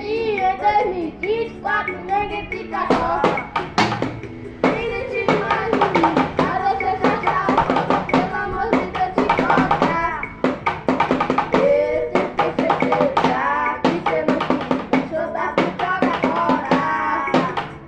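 A recorded song with a singing voice, and a drum kit played along with it in quick, sharp hits.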